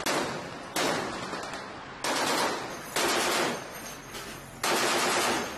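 Machine-gun fire: five short bursts, each starting suddenly and fading away over about a second, spaced unevenly.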